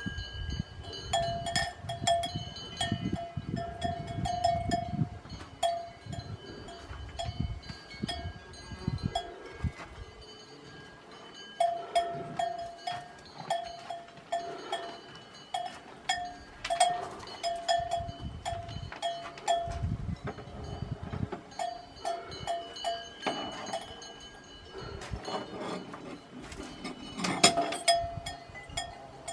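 Cowbell on a cow's collar clanking in irregular runs as the cow moves its head and body, each stroke ringing with the same tone, with short lulls between runs.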